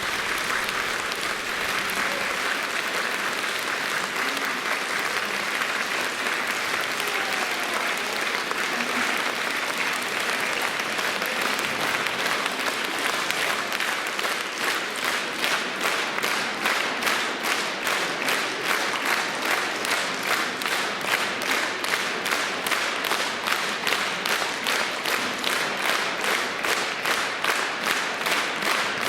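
Concert hall audience applauding as the music ends; about halfway through, the scattered clapping falls into a rhythmic, synchronised beat of about two and a half claps a second.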